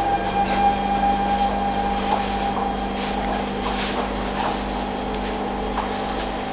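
Interior sound of a Siemens C651 MRT train carriage: a steady electrical hum and whine at several fixed pitches over a low rumble, with a few faint clicks and rattles.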